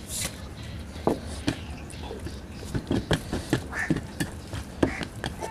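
Close-up mouth sounds of chewing pork curry meat: irregular wet smacks and clicks, several a second at times, over a low steady hum.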